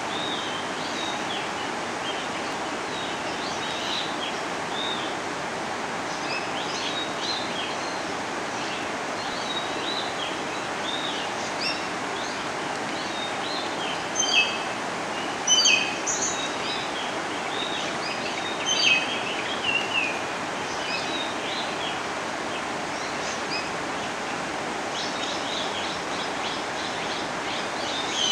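Small birds chirping and twittering in short, high calls, a few louder ones about halfway through, over a steady rushing outdoor background noise.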